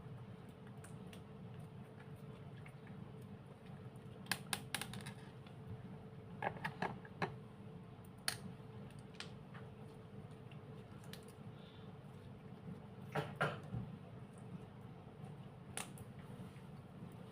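Light clicks and taps from handling small objects, in a few short clusters, over a faint steady hum.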